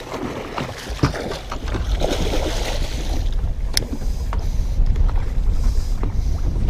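Steady wind rumbling on the microphone with water washing around the boat, broken by a few sharp clicks about one and four seconds in.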